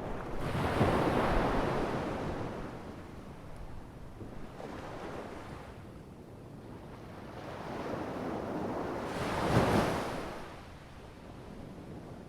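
Sea waves breaking in slow surges of rushing water: a big wave about a second in, a smaller one around five seconds, and another big one near ten seconds, each swelling and then falling away.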